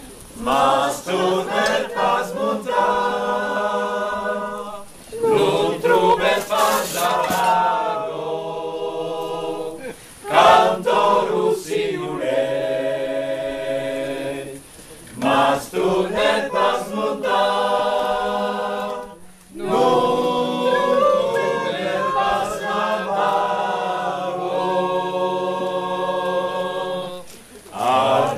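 Mixed group of men and women singing a traditional Occitan folk song a cappella, in phrases of a few seconds each, broken by brief pauses for breath.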